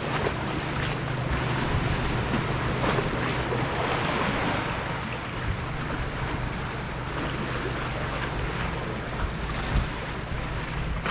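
Sea waves washing and wind buffeting the microphone, with a steady low hum underneath.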